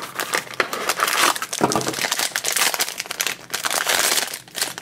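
Small cardboard blind box being opened by hand and the foil blind bag inside crinkling as it is pulled out and handled.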